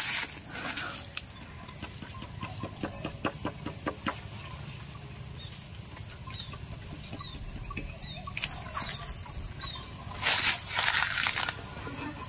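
A long bamboo harvesting pole with a bag on its tip shaking a red weaver ant nest in a treetop. Leaves rustle and twigs crackle and click, with a louder burst of shaking about ten seconds in. A steady high insect drone runs underneath, with a few short bird chirps.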